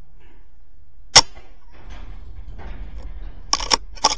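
A single shot from a .22 BSA Super10 air rifle about a second in, the loudest sound here. A few sharp clicks follow near the end.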